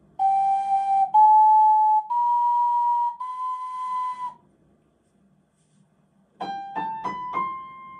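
Ocarina playing four held notes rising step by step, sol–la–ti–do, with la pitched flat so that ti and do also come out flat. After a short pause a piano plays four rising notes, the last one ringing on, giving the true pitches for comparison.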